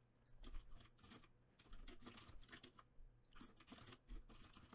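Typing on a computer keyboard: faint, irregular key clicks in quick runs, with a short pause about three seconds in.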